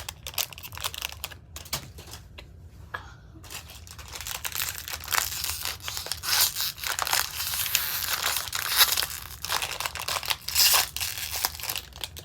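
A crinkly plastic candy wrapper, a Ring Pop's, being torn open and rustled. The crackling is sparse at first and becomes a dense, continuous crinkle from about four seconds in.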